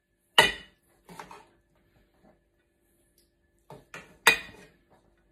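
Metal serving spoon clinking and scraping against a non-stick pan and a plate as cooked rice is scooped out and served: a few sharp knocks, the loudest about half a second in and just after four seconds.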